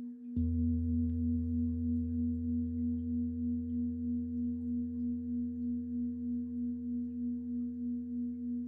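Deep pelvic singing bowl (Beckenschale) struck about a third of a second in, its deep tone ringing on over the earlier hum and slowly fading, with a steady pulsing wah-wah beat.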